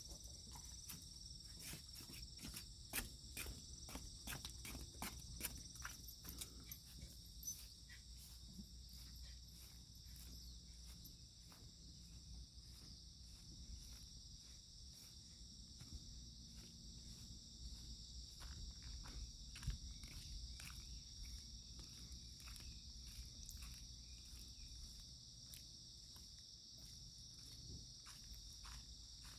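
Faint steady high-pitched chirring of insects, with many light clicks and taps scattered throughout, a few of them louder, like footsteps or paws on the ground.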